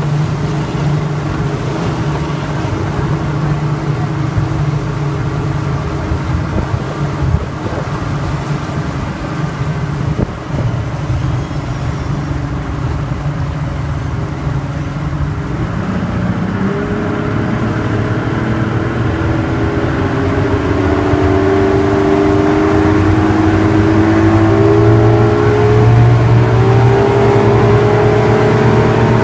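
Speedboat engine running under way, with the rush of the wake beneath it. About halfway through the engine pitch rises and it grows louder as the boat speeds up.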